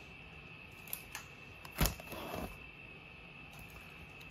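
Quiet handling noise of cardboard card boxes: a few light clicks, one sharper knock just under two seconds in followed by a brief rustle, over a faint steady high whine.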